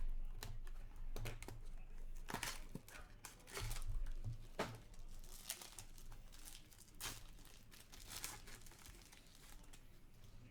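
Trading card pack wrappers being torn open and crinkled by hand, an irregular run of sharp rips and crackles.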